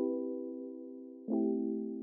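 Background music: a sustained chord struck, then a second chord about a second and a half in, each slowly fading.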